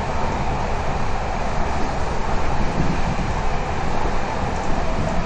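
Passenger train running at speed, heard from inside a coach: a steady rumble of the wheels on the rails with rushing air noise.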